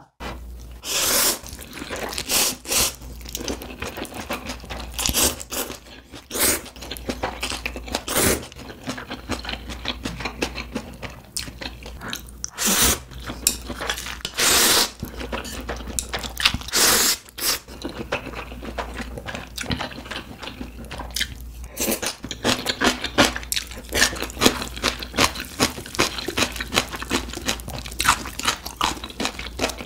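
A person eating instant ramen noodles close to the microphone: repeated slurps of noodles and broth, lasting about half a second each, with wet chewing between them. From about two-thirds of the way in, the chewing turns into a fast run of small clicking mouth sounds.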